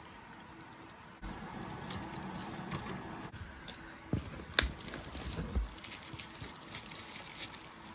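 Plastic packaging crinkling and rustling as a wrapped potted plant is handled, with scattered small clicks and one sharp click a little past halfway.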